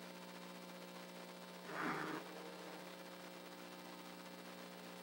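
Steady electrical mains hum from the sound system, with one brief noise about two seconds in.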